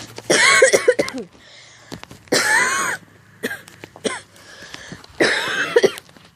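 A man coughing on purpose: three loud bouts of coughing about two seconds apart, the first a longer run of several coughs.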